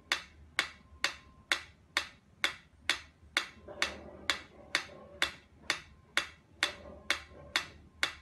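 Mechanical pyramid metronome ticking steadily at a little over two ticks a second, each tick a sharp dry click.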